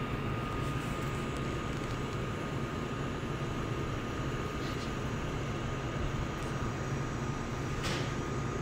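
Portable induction hob running, its cooling fan giving a steady whir with a thin high whine held above it, and a faint tick or two.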